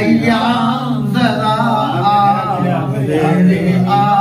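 A man singing a naat, a devotional Urdu poem, in a melodic recitation voice with long drawn-out notes.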